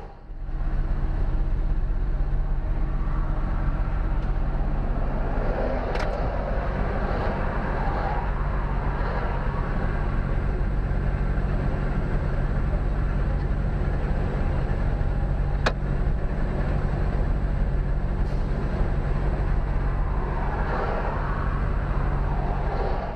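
A lorry's diesel engine idling steadily, heard from inside the cab. Two sharp clicks sound over it, about six seconds in and again near sixteen seconds.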